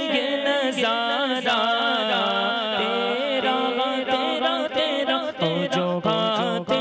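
A man's voice singing a naat, an Urdu devotional song, in long drawn-out lines that bend in pitch with ornamented turns. A steady low held tone runs underneath and drops to a lower note about five seconds in.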